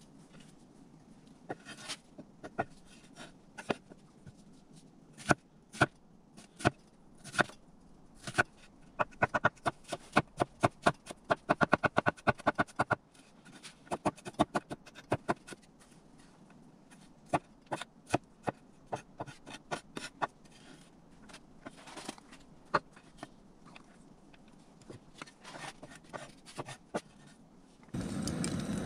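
Knife chopping food on a board: irregular single chops, with a fast even run of about five chops a second for several seconds in the middle. A steady rushing noise starts near the end.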